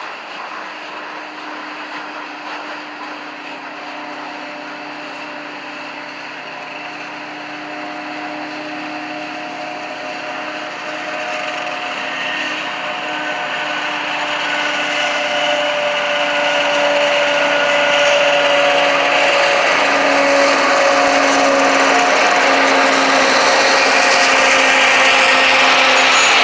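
CSX freight train rolling past, its steel wheels squealing on the rails with several steady tones at once over running noise. It grows gradually louder and hissier toward the end.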